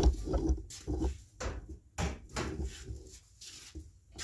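Irregular clunks and knocks of a riding lawn mower's hood being tipped up and lifted off.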